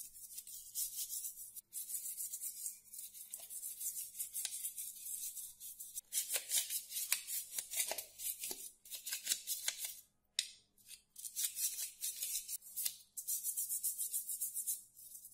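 Toothbrush bristles scrubbing wet plastic toy gun parts in rapid back-and-forth strokes, a scratchy rubbing that breaks off briefly three times.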